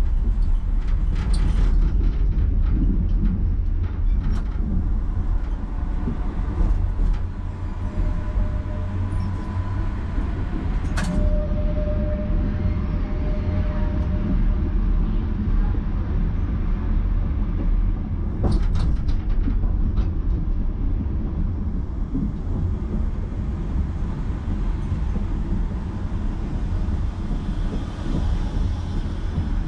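Tram running along its track: a steady low rumble with a few sharp clicks and knocks, and a faint steady whine for a few seconds in the middle.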